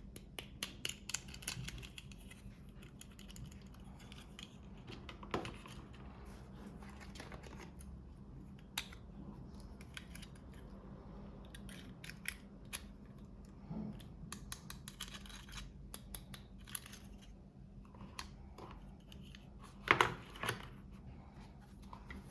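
Small toy packaging handled and opened close to the microphone: a run of light clicks, crinkles and rustles, with two louder knocks about twenty seconds in.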